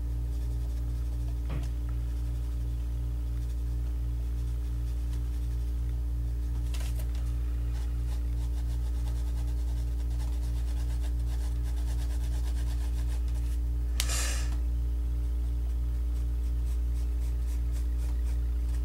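Mechanical pencil shading on paper, a faint rubbing scratch of strokes, over a steady low hum with a regular throb. Two brief louder rushing noises come about a third and three quarters of the way through.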